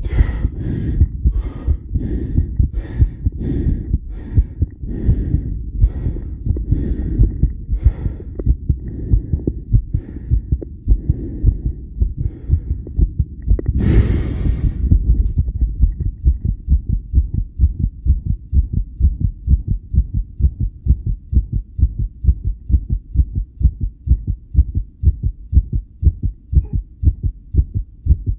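A fast heartbeat picked up through a homemade electronic stethoscope: an even run of low thuds. For the first several seconds each beat also carries a sharper, higher click. About halfway through, a loud rushing noise lasts over a second.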